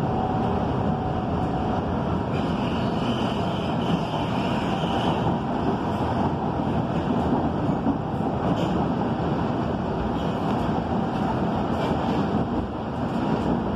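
Electric commuter train heard from inside the carriage while running along the track: a steady rumble and rattle of wheels on rails, with a few faint ticks.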